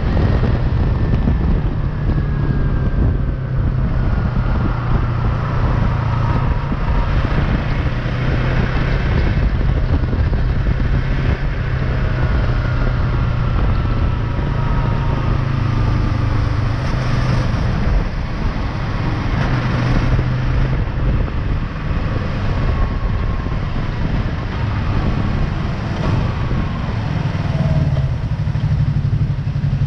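Yamaha MT-03's parallel-twin engine running on the road, its pitch falling in several long glides as the bike slows down, with a steady rush of wind and road noise.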